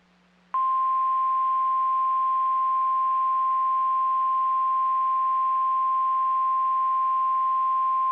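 NOAA Weather Radio 1050 Hz warning alarm tone: one steady, unbroken pure tone that starts abruptly about half a second in. It is the alert signal sent ahead of a warning to switch on alert-capable weather radio receivers.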